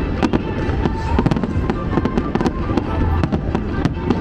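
Fireworks going off in rapid succession: a steady stream of sharp bangs and crackles over a low rumble from the bursts, with the show's music playing underneath.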